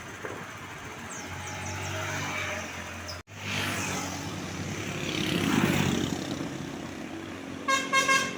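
Road traffic passing, with one vehicle going by loudest about five to six seconds in. Near the end a horn sounds three quick toots.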